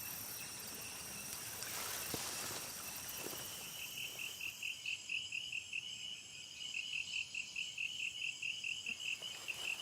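A cricket chirping in a fast, even rhythm of about five high pulses a second, starting about three seconds in, over a soft steady hiss.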